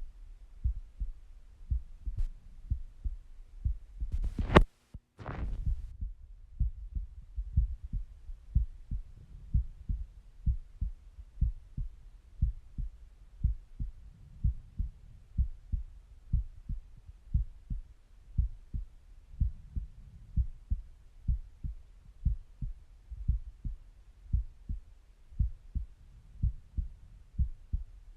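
A human heartbeat heard through a stethoscope at rest: a steady rhythm of low lub-dub thuds. A little after four seconds a loud scraping rustle cuts off into a moment of silence, and then the beat carries on.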